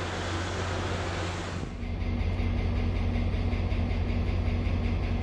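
An even hiss of station noise, then after about a second and a half a steady low rumble from an MBTA commuter train's diesel locomotive, running with a steady hum as the train reverses slowly out of the station track.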